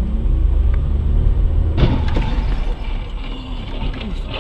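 Steady low rumble of a car on the road, with a sudden harsh burst of noise about two seconds in and another near the end.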